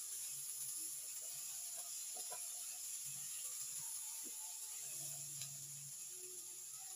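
Diced onions and peppers sizzling steadily in a hot non-stick wok as they are stirred with a silicone spatula, with a few faint soft ticks.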